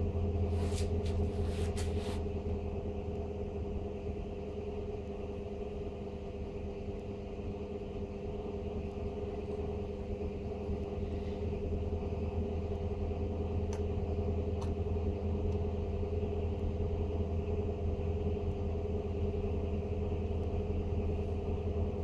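Blower door fan running steadily, pulling the house into depressurization, with a constant hum. Its level dips slightly a few seconds in and then slowly rises as the controller adjusts fan speed toward its target building pressure. A few sharp clicks about a second in.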